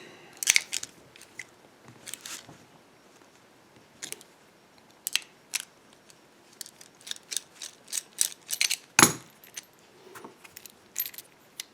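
Small metal tools and parts clinking and clattering against each other and a hard surface: an irregular run of sharp clicks, the loudest knock about nine seconds in.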